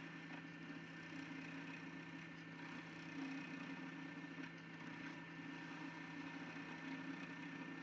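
Wood lathe's electric motor running with a steady hum.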